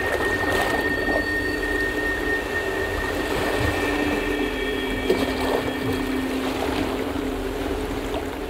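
Soundtrack of a video played over an auditorium's loudspeakers: several sustained droning tones, a low one shifting pitch about halfway through, over a steady wash of noise.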